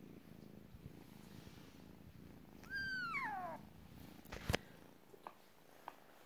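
A kitten purring steadily, with one high meow falling in pitch about three seconds in. A sharp knock follows about a second later, and the purring then fades.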